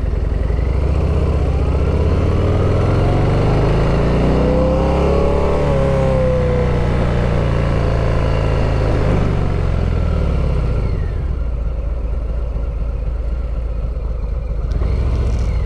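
Harley-Davidson V-twin engine running under way and accelerating. Its note climbs and falls back between about four and seven seconds in, then eases a little after about ten seconds.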